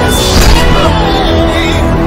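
Loud background music with a beat, with a sudden noisy hit laid over it about half a second in.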